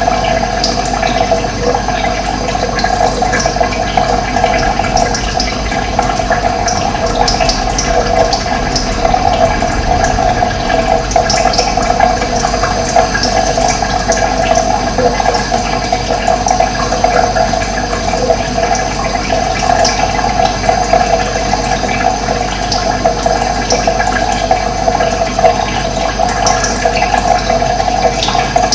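Steady rush of running water, with brief high bird chirps scattered over it.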